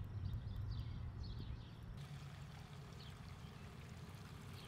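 Liquid poured from a bottle through a plastic funnel into a motorcycle's tank: a steady, quiet trickle that starts about two seconds in, after a low rumble fades out.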